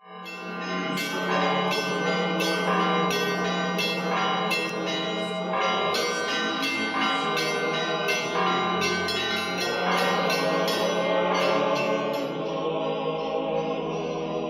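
Church bells ringing in a rapid run of overlapping strikes over a steady low hum, fading near the end.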